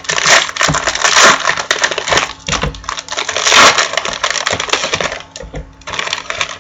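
Plastic trading-card rack-pack wrappers crinkling and crackling as they are handled and torn open, busy for about five seconds, then easing off with one more short burst.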